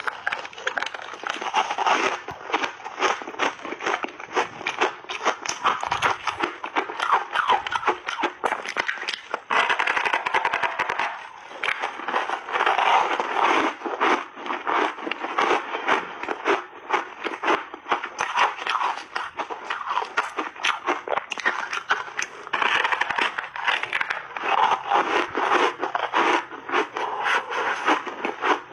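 Chewing and crunching through big bites of frozen ice coated in milk powder. A dense, continuous crackle of ice breaking between the teeth, with brief lulls between mouthfuls.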